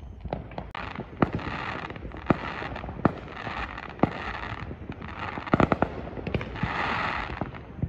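Aerial firework shells bursting: a series of sharp bangs about a second apart, with a quick cluster of several around five and a half seconds in. Between the bangs there is a hissing crackle, strongest near the end.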